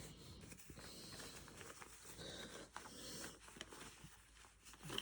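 Near silence with faint rustles and small clicks as a dog coat is handled and worked onto a small chihuahua.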